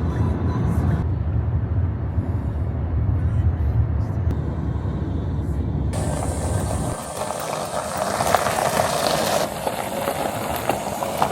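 Steady low rumble of a moving vehicle for about the first six seconds, then an abrupt change to a steady hiss without the rumble.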